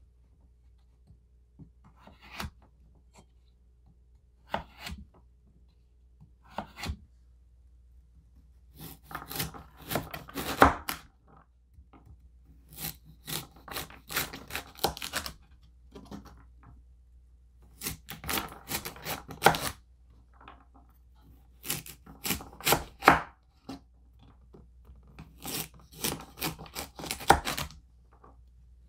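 Victorinox chef's knife chopping carrots on a wooden cutting board. A few single cuts come about two seconds apart, then runs of quick chops dice carrot sticks into cubes, each run lasting two or three seconds with short pauses between.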